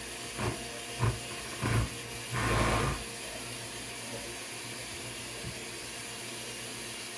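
Electric stand mixer running steadily, beating caramel buttercream in a glass bowl. In the first three seconds there are a few short knocks, then a louder rasp lasting under a second, as the bowl and beaters are handled.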